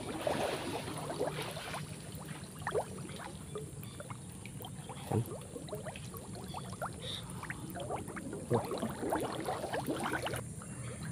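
Water sloshing and splashing around a person wading chest-deep through a creek, in irregular spells, busiest about a second in and again near the end.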